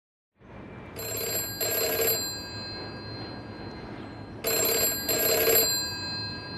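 Telephone bell ringing in the British double-ring pattern: two short rings, a pause of about two seconds, then two more.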